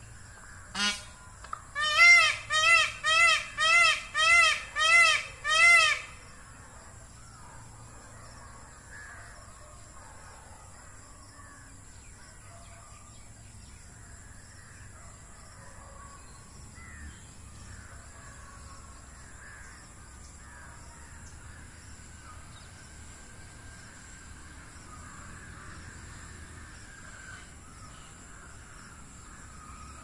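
Indian peafowl calling: one call about a second in, then a quick series of eight loud calls about half a second apart, each rising and then falling in pitch, ending about six seconds in. Faint bird chirps over a quiet outdoor background follow.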